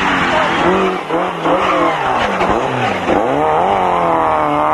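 Peugeot 205 rally car's engine under hard throttle as it passes close by. The revs dip twice, then climb steadily as it accelerates away.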